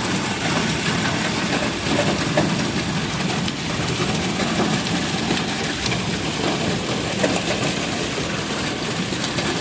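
Hailstones clattering on a car's roof and windshield, heard from inside the car: a dense, steady patter of many small hits.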